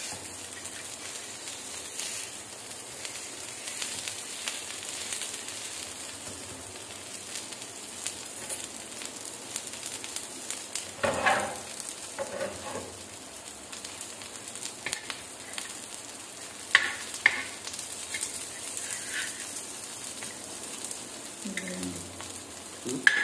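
Pumpkin-flower and mushroom fritters sizzling steadily in oil on a flat tawa. A spatula scrapes and knocks on the pan a few times as they are turned.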